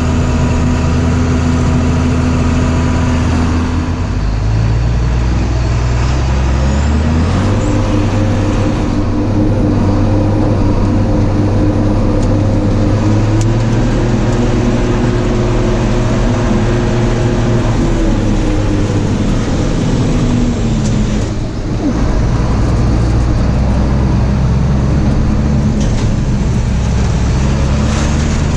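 Case tractor's diesel engine running steadily, its pitch changing several times as engine speed shifts: it drops about four seconds in, climbs around seven seconds and again around thirteen, then falls back near eighteen seconds with a brief dip a few seconds later.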